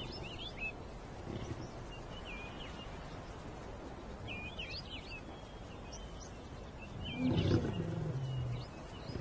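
A lion gives a low call lasting about a second and a half, starting about seven seconds in, over a steady outdoor background with short high bird chirps several times.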